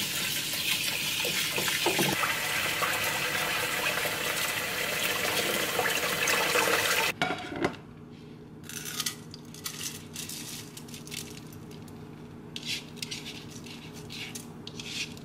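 Kitchen faucet running into a wooden bowl as sushi rice is rinsed, a steady splashing hiss that cuts off suddenly about seven seconds in. After it, scattered light clicks and taps as the rinsed rice is tipped from the bowl into a pot.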